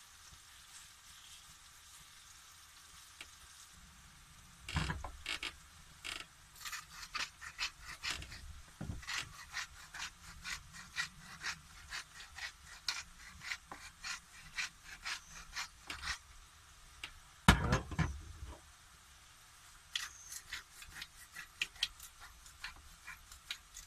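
Hand-twisted salt and pepper style grinder mill grinding, a rapid run of dry ratcheting clicks and rasps in spells, starting a few seconds in. A single louder knock comes about two-thirds of the way through.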